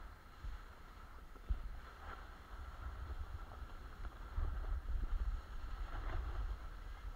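Wind rumbling on an action camera's microphone while snowboarding downhill, over the hiss and scrape of a snowboard sliding on packed snow; one sharp knock about a second and a half in, and the rumble grows louder past the middle.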